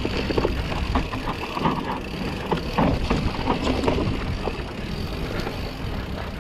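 Mountain bike descending a dry dirt trail: tyres crunching over loose dirt and dry leaves and the bike rattling over bumps, busiest in the first four seconds, over a steady low wind rumble on the microphone.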